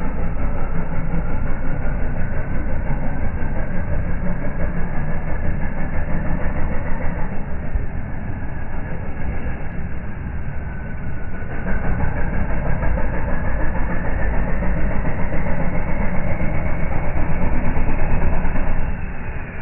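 Toyota Hilux LN106 engine and drivetrain working under load as the truck crawls through deep mud, a rapidly pulsing rumble with a whine that climbs in pitch twice, the second time from about halfway through; the level drops just before the end.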